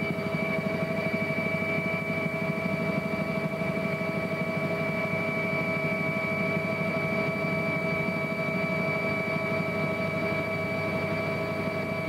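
Helicopter's turbine engines and rotor running steadily: a fast, even low throb under a steady high whine.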